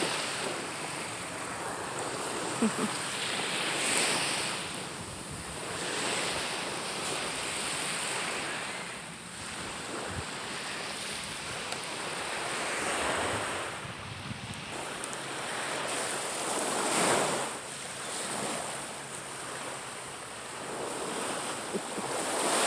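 Small waves breaking and washing up on a sandy beach, the surf swelling every four or five seconds, with wind on the microphone.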